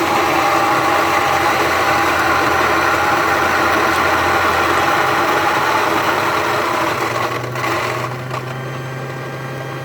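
Baratza Vario flat-burr coffee grinder grinding a dose of beans: a loud, steady motor-and-burr whir that starts abruptly. About seven and a half seconds in it drops in level and thins as the last beans run out and bounce above the burrs (popcorning).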